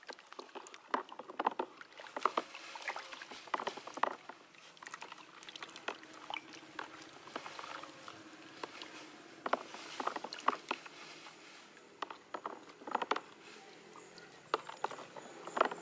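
Stick stirring a plastic bucket of thick molasses liquid with pineapple chunks, making irregular sloshing and splashing strokes. The stirring mixes in the molasses that has settled to the bottom of the bucket.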